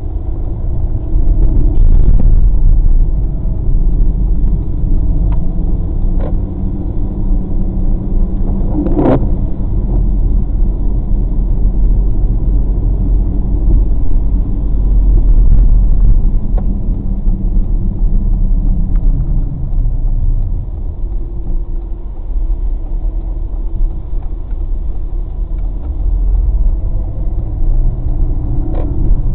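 A car driving on wet city streets, heard from inside the cabin: a steady low rumble of engine and tyre noise. One sharp knock comes about nine seconds in.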